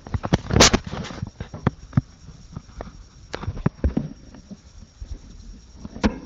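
Irregular taps, clicks and rustling around a hamster cage with a plastic wheel and paper bedding, with a louder cluster of knocks and rustles about half a second in.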